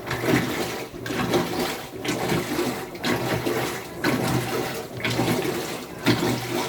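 Washing machine agitating its load, water sloshing in regular surges about once a second as the agitator swings back and forth.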